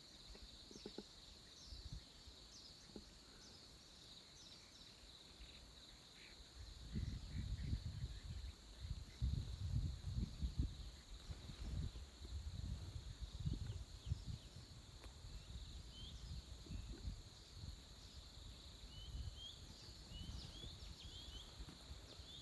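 Early-morning forest ambience: a steady chirring of insects with scattered short bird chirps, which grow more frequent near the end. From about a third of the way in, wind buffets the microphone in low, rumbling gusts that ease off after the middle.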